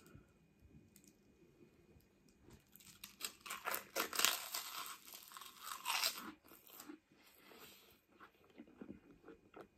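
A prawn cracker being bitten and chewed: a run of dense crunching from about three seconds in until about six seconds, then softer, scattered chewing.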